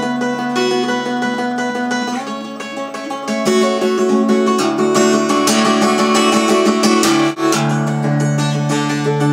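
Acoustic guitar in open C tuning played solo, strummed and picked over ringing low strings. It gets louder a little over three seconds in, with a brief break in the sound about two seconds before the end.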